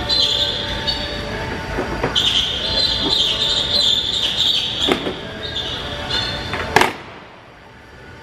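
Plastic front bumper cover being pulled off a car: a high-pitched squeal of plastic rubbing, with a few sharp snaps of retaining clips letting go, the loudest about seven seconds in.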